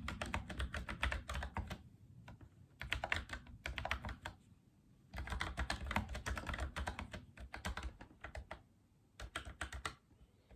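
Typing on a Logitech MX Mechanical Mini for Mac mechanical keyboard: quick runs of key clicks in about four bursts, with short pauses between them.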